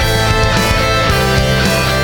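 Background music: a heavy rock track with distorted electric guitar over a steady bass and drum beat.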